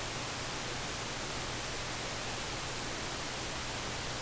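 Steady, even hiss with a faint low hum underneath and no distinct events: the recording's background noise.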